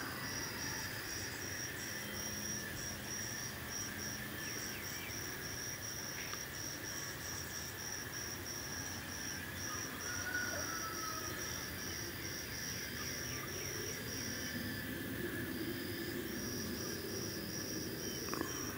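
High-pitched insect chirping in an even rhythm, about three chirps a second, with a short break about fifteen seconds in.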